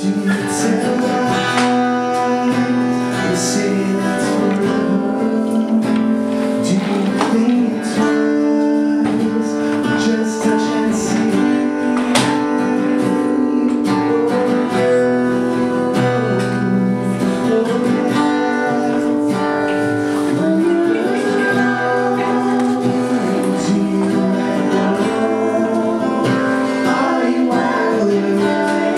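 A man singing a song while strumming an acoustic guitar, performed live.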